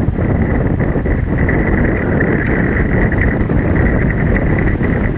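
Wind buffeting the microphone, a loud uneven low rumble, with a steady high-pitched whine running underneath.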